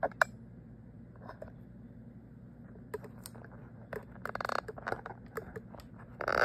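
Scattered clicks, scrapes and crinkly rustling from things being handled, over a steady low hum. The sounds come thickest about four seconds in and are loudest just before the end.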